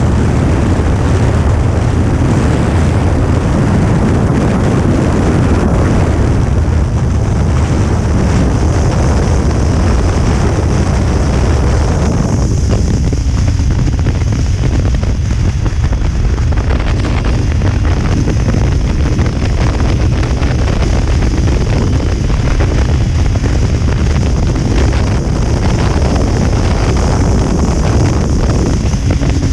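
Loud, steady wind rush buffeting the microphone of a rider on a Kawasaki Ninja 300 at highway speed, with the motorcycle running underneath. The rush thins a little about halfway through.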